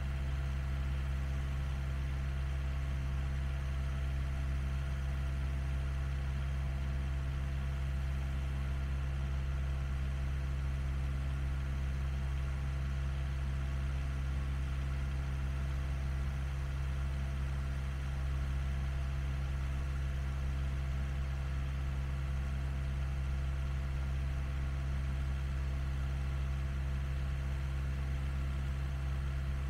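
Engine idling steadily: a constant low hum that holds the same speed throughout.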